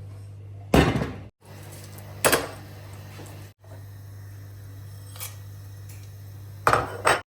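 Kitchen handling noises: brief clatters of dishes and utensils, three times, over a steady low hum.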